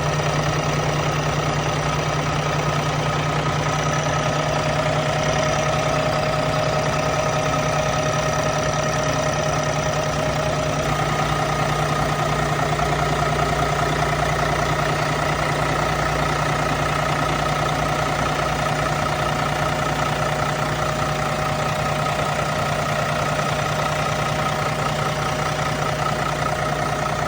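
Cummins ISX12 diesel engine of a Kenworth T880 mixer truck idling steadily with an even drone.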